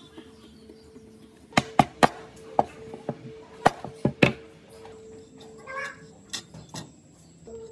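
Hand tools and small metal parts clicking and knocking against a painted sheet-metal tray and a wooden workbench during reassembly. The knocks are sharp and come in a quick cluster of about seven, from about a second and a half in to about four and a half seconds in, followed by a few lighter ticks.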